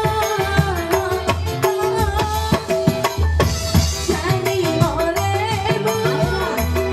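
Live dangdut band music: a woman singing a wavering melody into a microphone over electronic keyboard and hand drums keeping a steady, dense beat.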